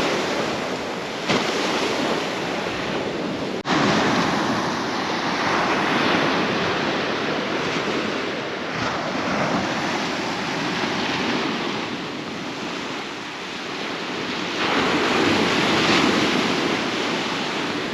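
Ocean surf breaking and washing up the beach, swelling and easing in slow waves, with wind on the microphone.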